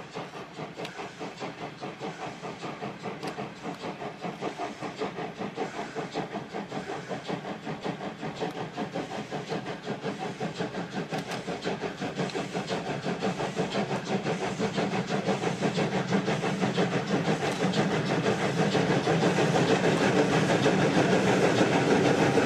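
German 2-10-0 steam freight locomotive working hard, its loud exhaust beats chuffing in a steady, rapid rhythm. The beats grow steadily louder as it approaches.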